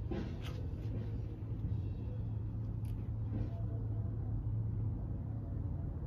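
A 42-inch Hampton Bay Bridgeton ceiling fan running on high speed: a steady low hum from the motor. The fan runs quiet, with a little hum and a little bearing noise.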